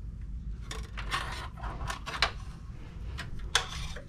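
Handling noise on an opened workstation's sheet-metal case: several sharp clicks and light metal knocks, the loudest about halfway through and again near the end, over a steady low hum.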